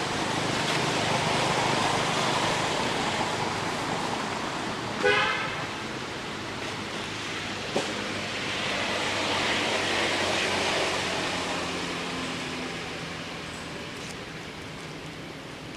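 Background road traffic: a steady engine hum and a noise that swells and fades twice as vehicles pass. About five seconds in comes a short high-pitched toot, and a sharp click follows near eight seconds.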